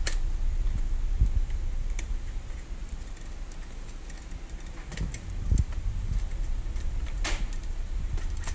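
Scattered clicks and clatter of a delta robot's plastic ball-joint sockets and metal parts being handled and pressed onto the steel ball studs of its aluminium end effector, with a few soft thumps. The sharpest click comes about seven seconds in.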